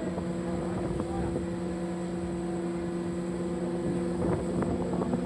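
Boat machinery droning steadily with several held tones, joined by a run of knocks and clatter about four seconds in.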